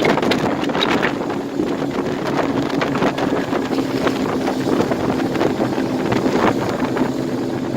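Twin 60 hp Mercury Command Thrust four-stroke outboards running steadily with the boat under way, heavily buffeted by wind on the microphone.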